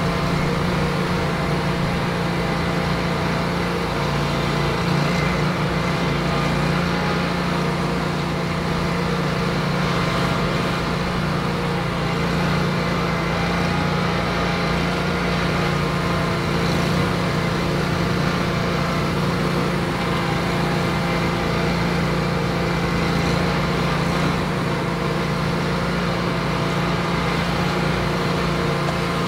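Wright stander mower's engine running steadily at a constant speed while the mower is driven.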